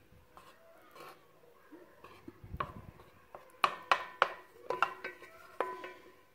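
Wooden spatula stirring melting butter in a nonstick pot: scattered sharp taps and scrapes against the pot, each with a brief metallic ring, with most of them in the second half.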